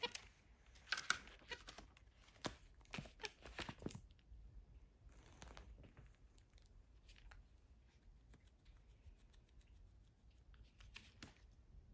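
Quiet paper crackling and rustling as a capuchin monkey handles a paperback book's pages, a quick run of sharp crackles over the first four seconds, then only faint scattered rustles.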